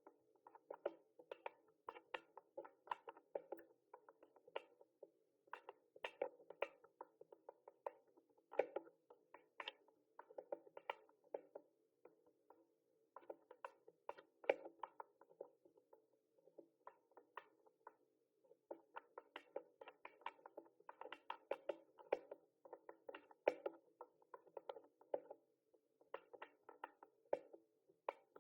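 Typing on a mechanical keyboard: rapid, faint key clicks in runs, broken by short pauses, the longest about two seconds past the middle.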